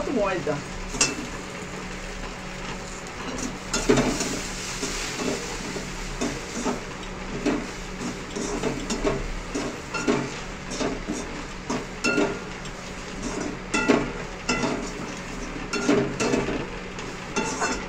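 A cooking utensil scraping and knocking against a metal kadai as sliced onions are stirred and fried, in quick irregular strokes over a low frying sizzle.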